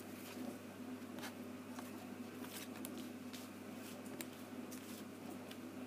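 Oracle cards being dealt and laid down on a cloth-covered table: soft slides and light taps with a few sharper clicks, over a steady low hum.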